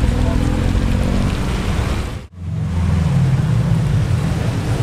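Cars passing slowly on a wet road, engines running over the hiss of wet tyres. The sound drops out abruptly a little over two seconds in, then comes back with a stronger, deeper engine note.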